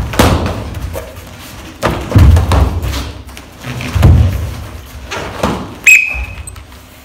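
Gloved punches and shin-padded kicks landing in full-contact karate sparring: a series of dull thuds, some coming in quick pairs, with a brief high squeak near the end.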